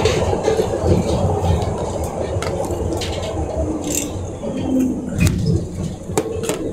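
Original-stock Glasgow Subway train running through the tunnel and coming into a station, a steady low rumble of wheels on rail with scattered clicks and rattles from the car.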